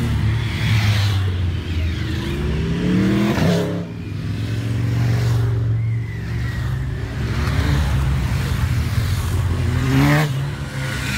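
Motorcycles riding past one after another, their engines speeding up as each pulls away. The closest bikes pass about three and a half seconds in and again near the end.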